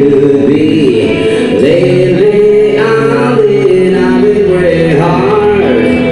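Live band music with a lead singer: a sung melody over steady held low notes from the backing instruments, loud and continuous.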